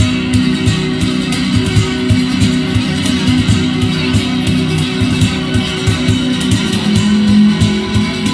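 Live instrumental guitar music: guitars played fast over a steady percussive beat.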